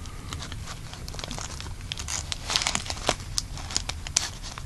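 Plastic wrapping crinkling as it is handled: irregular small crackles that get busier about halfway through.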